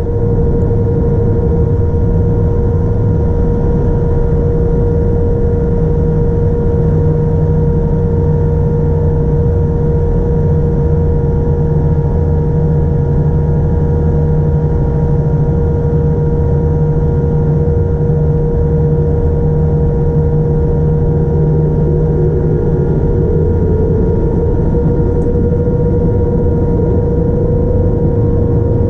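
Jet engines of a Boeing 787-9 running, a loud steady noise with a constant whine over a deep rumble. A second tone rises slightly in pitch near the end.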